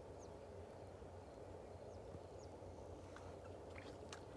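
Faint, quiet pond-side ambience: a steady low hiss and hum, with a few brief high chirps and some faint clicks in the last second or so.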